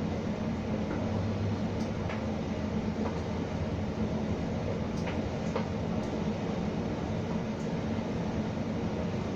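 Electrolux tumble dryer running on its cotton programme: a steady rumble and hum from the turning drum, motor and fan, with a few faint ticks.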